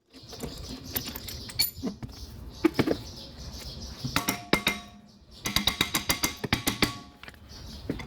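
Metal tools and parts clinking and clanking, with short ringing notes, and a quick run of clicks about two-thirds of the way through.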